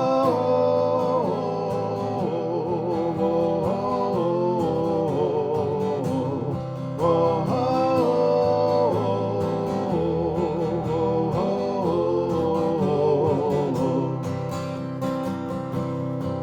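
A song intro: acoustic guitar strummed steadily under a man's wordless, drawn-out 'whoa' vocal melody, in phrases of a second or two.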